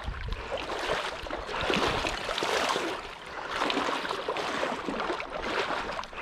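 Water sloshing and splashing in uneven swells, with small clicks: a gun dog wading or swimming back through the marsh water on a retrieve.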